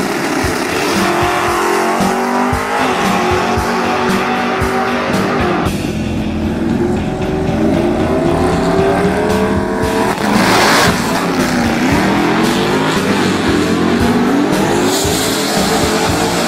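Drag-racing street cars' engines idling and revving in the staging lanes, several engine notes at once rising and falling in pitch. About ten and a half seconds in there is a short burst of noise, with tire squeal, as a car launches and its engine revs down and back up.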